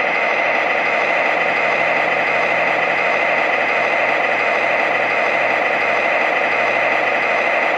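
MTH RailKing ES44AC O-gauge diesel locomotive's onboard sound system playing a steady diesel engine running sound through its small speaker.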